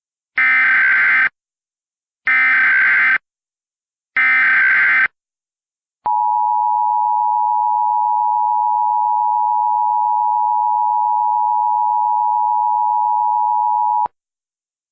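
Emergency Alert System SAME header on NOAA Weather Radio: three raspy digital data bursts, each about a second long with a second of quiet between, followed by a single steady attention tone lasting about eight seconds that cuts off abruptly. The sequence signals that an emergency alert message follows.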